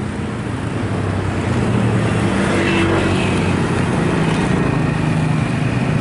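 Steady low vehicle rumble with a hum, with a faint short tone about two and a half seconds in.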